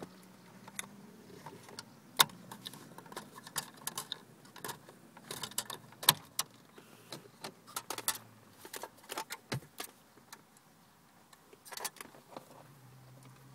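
Irregular clicks, taps and small rattles of a BMW E46 factory radio head unit's metal casing and its plug connectors being handled. The sharpest clicks come about two and six seconds in.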